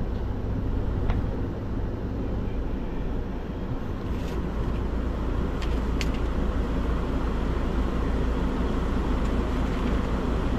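Semi truck's diesel engine idling steadily, heard from inside the cab while the loaded truck sits on a weigh scale, with a few light clicks over the low rumble.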